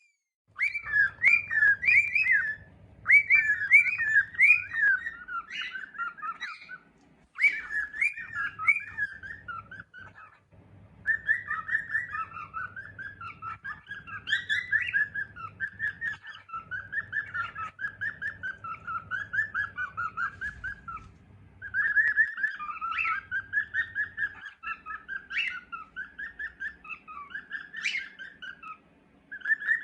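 Cockatiel chirping and warbling in quick runs of whistled notes, with several short breaks.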